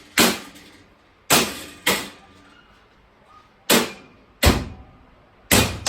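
Rubber mallet tapping a steel shelf bracket down onto the riveted lugs of a metal shelving upright, about six sharp knocks at uneven intervals, each ringing briefly in the metal frame.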